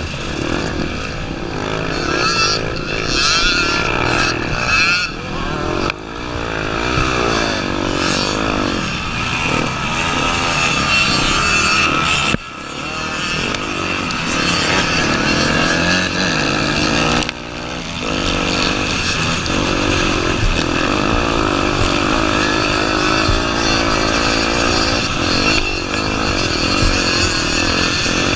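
Honda Tornado 250's single-cylinder four-stroke engine being ridden hard, the revs rising and falling continually with the terrain and gear changes. Three times the sound drops sharply as the throttle is shut, then picks up again.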